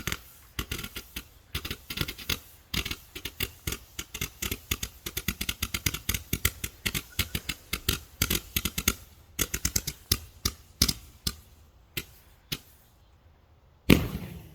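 Small firework going off: a long run of rapid, irregular crackling pops lasting about twelve seconds, then a short lull and one loud bang near the end.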